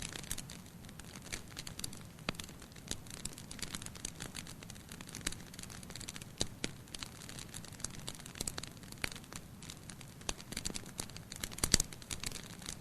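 Campfire crackling: burning wood giving irregular sharp pops and snaps, with a louder cluster of snaps near the end.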